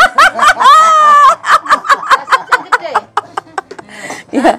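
Laughter: quick high-pitched ha-ha pulses, a long held laugh about a second in, then it tails off into quieter, faster chuckling.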